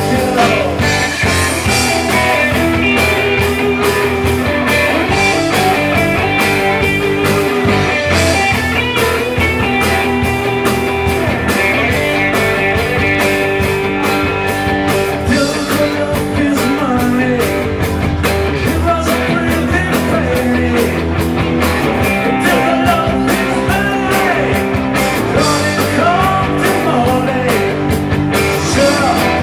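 Live rock band playing: electric guitars, bass guitar and drum kit keeping a steady beat, with a man singing into a microphone over it.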